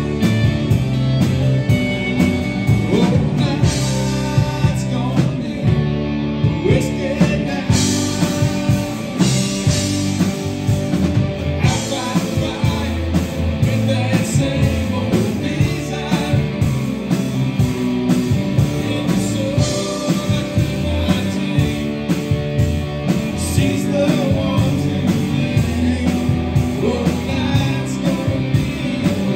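Live rock band playing: two electric guitars, electric bass and a drum kit, with a man singing lead.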